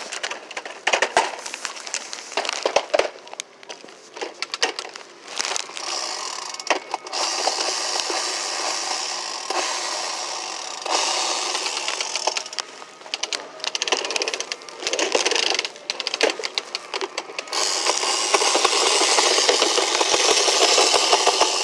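A hard plastic toy rattling and clattering as it is handled, with scattered knocks and clicks and two longer stretches of rapid rattling.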